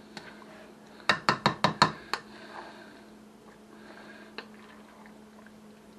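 A plastic spoon knocking against a glass mixing bowl about six times in quick succession, with one more knock a few seconds later, amid the soft sound of stirring a thick mayonnaise-bound ham salad.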